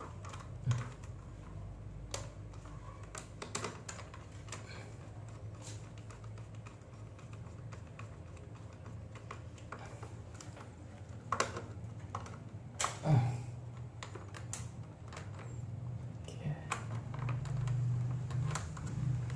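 Light, irregular clicks and taps of hand work on a consumer unit's breakers and wiring, with a few sharper knocks around the middle and a low hum growing louder near the end.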